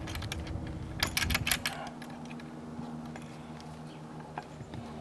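Metal clicks and clatter from a strut being fitted into a camera dolly's track rail by hand: a few light clicks, then a quick cluster of sharp clicks about a second in, and a couple of faint ticks near the end.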